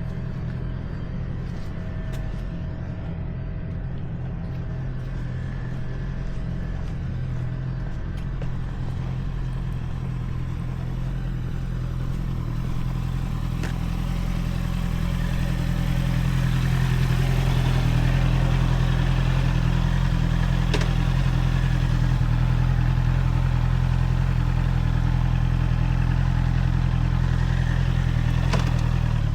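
Honda CBR650R's inline-four engine running on a ride, steady at first and getting louder until about halfway in, then holding steady with more rushing noise on top.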